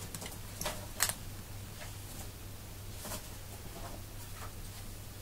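A handful of light clicks and scrapes from a steel tissue blade and a polymer clay sheet being handled on a glass work board, the sharpest about a second in, over a steady low hum.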